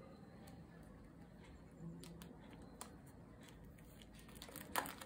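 Faint crinkling and light clicks of plastic photocard sleeves and cards being handled, with one sharper click near the end.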